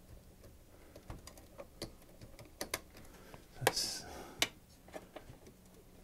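Scattered small clicks and taps of hands working cables and plastic parts inside an open desktop PC case. The loudest is a sharp click followed by a short rustle a little past halfway, with another click just after.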